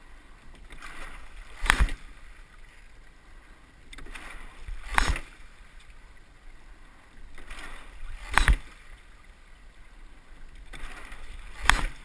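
Sculling boat with two rowers being rowed at a steady, easy rate: a sharp clack from the oars in their oarlocks comes with each stroke, four times, about every three and a half seconds. Each clack follows a swelling rush of water and rigging noise.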